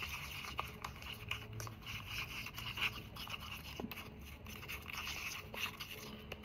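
A stick stirring thick chalk-and-glue gesso in a paper cup: faint, irregular scraping and light ticks against the cup wall. The gesso has been thickened to a dough-like paste.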